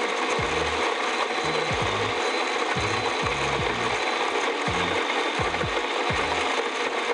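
Quick Mill 060 EVO coffee grinder running steadily, its 43 mm flat hardened-steel burrs grinding coffee beans at a fine espresso setting.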